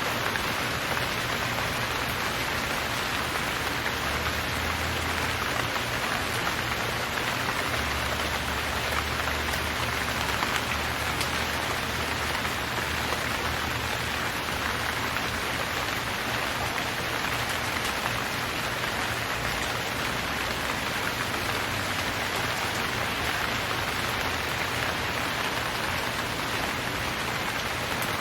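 Steady rain falling and pattering on surfaces, an even hiss without thunder or breaks.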